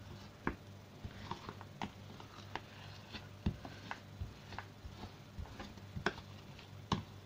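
Metal spoon scraping and knocking in a plastic tub as it works and breaks up semi-frozen peach ice, giving light irregular clicks about once or twice a second.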